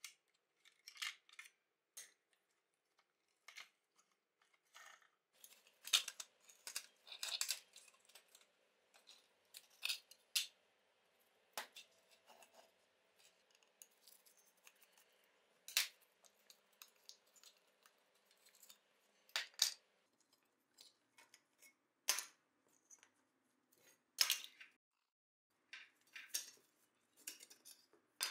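Scattered light clicks and clinks of small metal and plastic parts as a rusty die-cast model car is taken apart by hand, pieces pried loose and set down on the bench. A faint steady hiss sits under the middle stretch.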